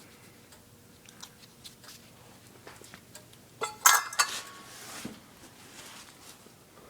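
Small metal parts of an old small engine being handled, clicking and clinking, with a louder metallic clatter and brief ringing about four seconds in.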